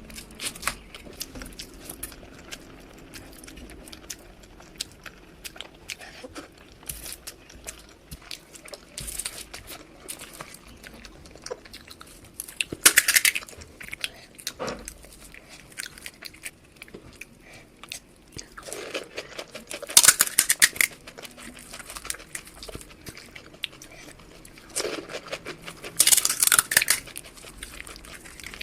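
Close-miked eating sounds: wet chewing and small mouth clicks, with three louder crunching bites, one about halfway through and two more near the end.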